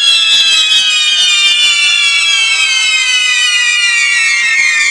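Whistling fireworks on a burning torito (fireworks bull frame): a loud, shrill, continuous whistle that glides slowly down in pitch, over a faint hiss of sparks.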